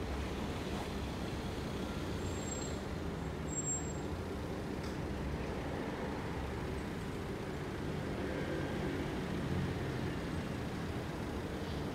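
Steady low rumble of a heavy vehicle, running at an even level.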